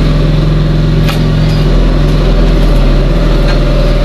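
A motor engine running steadily at a constant speed, loud and close, with a couple of sharp clicks over it, one about a second in.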